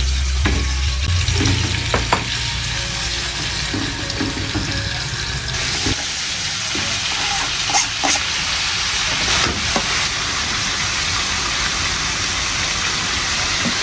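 Food sizzling as it fries in a pan, a steady hiss that gets brighter about five and a half seconds in, with a few small clicks.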